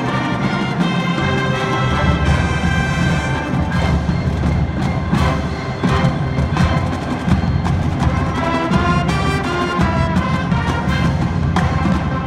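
Marching band playing: brass and wind instruments holding chords and melody over a drum line, with frequent drum strokes cutting through.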